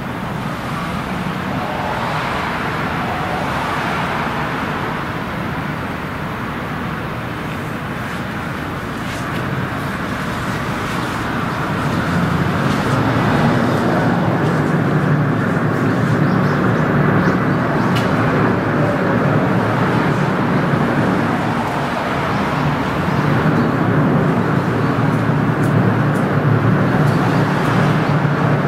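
Gut ship's engine running steadily as the gravel carrier comes alongside. It grows louder and deeper about twelve seconds in.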